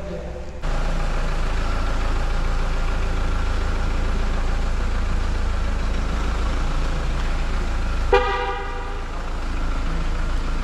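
A car horn gives one short toot about eight seconds in, over a steady low rumble that starts abruptly just under a second in.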